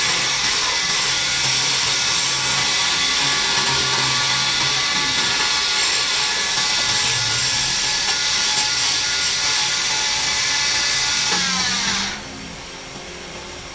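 Wood lathe running as a long wooden spindle is worked with a hand turning tool, giving a steady loud whir and cutting hiss. About twelve seconds in the cutting stops and the sound drops to a quieter run.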